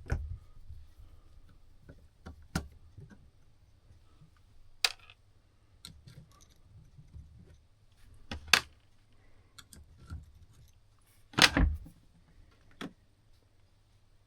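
Small metal tools and parts clicking and knocking against a Seth Thomas clock movement as a Geneva stop is being taken off: a handful of separate sharp clicks spread out, the loudest and longest knock near the end.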